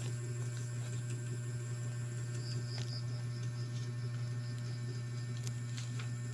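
Steady low electrical hum, with a few faint ticks near the end.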